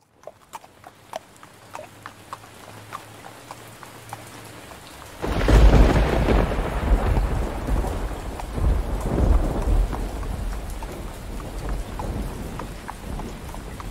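Steady rain with scattered drips, slowly growing louder; about five seconds in a clap of thunder breaks in and rumbles deeply, fading slowly under the rain.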